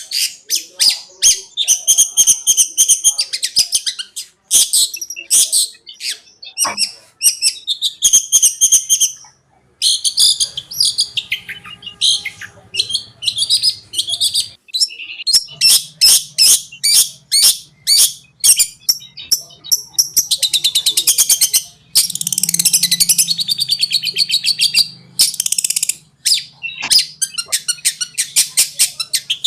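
Long-tailed shrike (cendet) singing a fast, chattering 'konslet'-style song: rapid runs of sharp, high notes with a few brief breaks.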